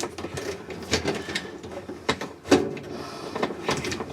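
Scattered plastic clicks and knocks of a washing machine's lid switch and its wiring connector being handled and worked loose, with one louder knock about two and a half seconds in.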